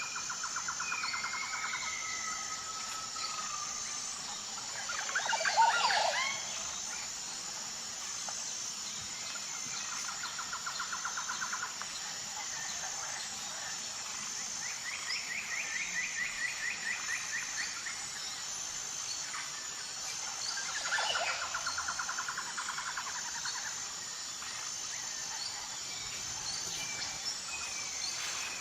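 Outdoor wildlife ambience: birds calling in rapid trills several times over a steady high-pitched insect drone, with one louder call about five seconds in and another about twenty-one seconds in.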